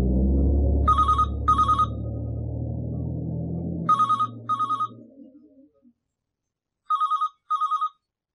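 Telephone ringing with an electronic trill in the double-ring pattern, three pairs of short rings about three seconds apart. A low rumble under the first rings fades away about five seconds in.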